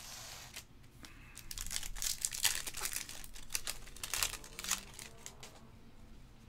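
A 2024 Bowman Baseball trading-card pack's foil wrapper being torn open and crinkled in the hands, a dense run of crackly rustling that eases off near the end as the cards come out.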